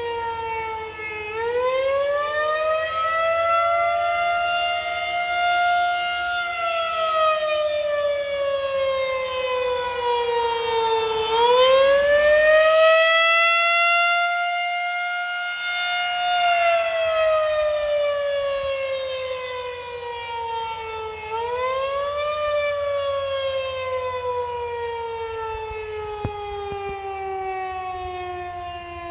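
Federal Signal 2001-130 rotating outdoor warning siren sounding its steady tornado-test tone. Three times, about ten seconds apart, the pitch swings quickly up and then slowly sinks, and it is loudest around the middle.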